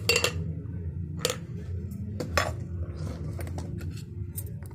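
Stainless-steel cocktail shaker and bar tools clinking as they are set down on a bar: a few sharp metal knocks, the loudest right at the start and others about a second and two and a half seconds in, with lighter taps near the end, over a steady low hum.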